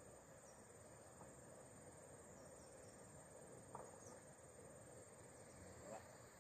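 Near silence, with a faint steady high-pitched insect chirring running on unbroken.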